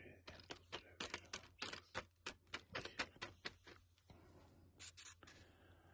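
Old corroded metal coins clicking and scraping against each other on a paper plate as they are moved about by hand: a quick run of light clicks for about three and a half seconds, then a few more about five seconds in.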